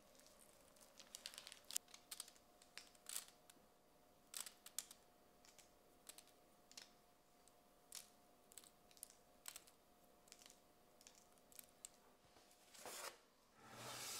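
Faint, scattered soft ticks and crackles as grated cheese and chopped dill are sprinkled by hand onto a rolled zucchini omelette on parchment paper, with light handling of the paper. A longer rustle comes near the end.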